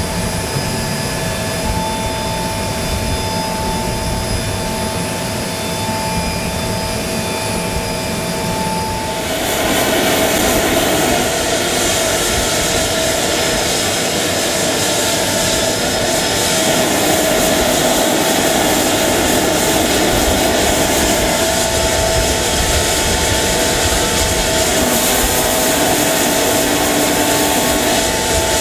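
Steady whine and rush of a running jet turbine, with two held tones. About nine seconds in, the rush grows louder and brighter and stays that way.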